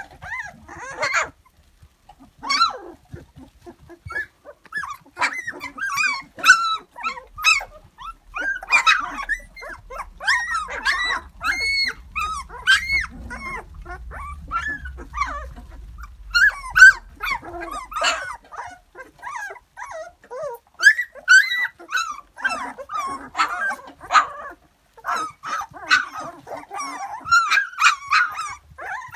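A litter of 16-day-old Dalmatian puppies whining and squeaking, many short high calls overlapping almost without a break.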